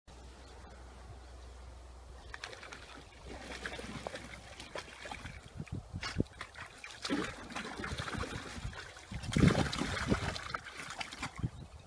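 Water splashing and sloshing in a plastic paddling pool as a dog paws and steps about in it: a run of irregular splashes and drips, loudest near the end.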